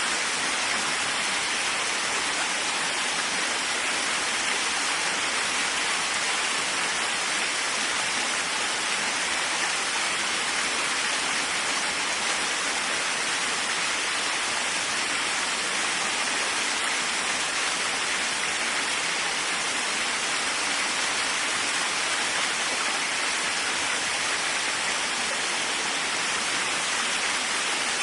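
Waterfall: steady rushing and splashing of falling water, an even hiss with no breaks.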